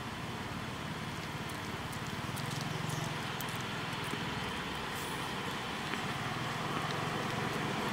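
Steady outdoor background noise with a low rumble that grows a little louder near the end, and a few faint clicks.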